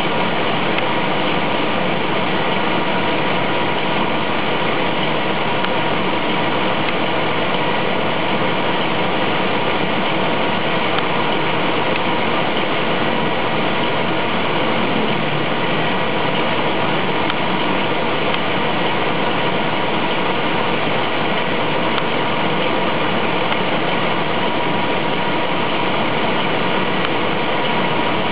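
1/12 scale Kyosho DF-300 RC snowcat model giving a steady engine-idle sound, unchanging throughout.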